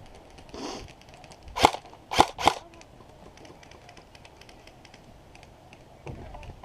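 Airsoft gun firing three sharp single shots, the last two about a quarter second apart, with faint scattered ticks throughout.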